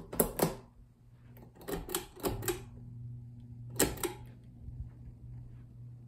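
Ceiling fan pull-chain switch clicking in three quick groups, the sharp clicks of the switch with the chain's rattle, over the steady hum of the Minka Aire Supra's motor; by the end the light kit has been switched off.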